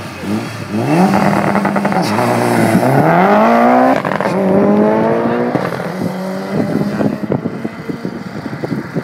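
Mitsubishi Lancer Evolution IX's turbocharged four-cylinder launching hard on a drag strip. Its revs are held steady at first, then climb with a sudden drop at each upshift, and the sound fades as the car pulls away down the strip.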